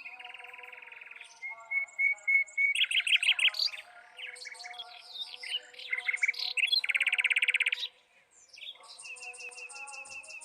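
Common nightingale singing a varied string of phrases: rapid repeated notes, thin whistles, a dense chattering series, and a long held whistle near the end, with a short pause about two-thirds of the way through.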